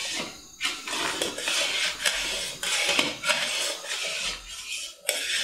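Metal spatula scraping around the bottom and sides of a karahi in repeated strokes, about one a second. It is stirring thick, reducing milk (khoya) nonstop so that it does not stick to the bottom and burn.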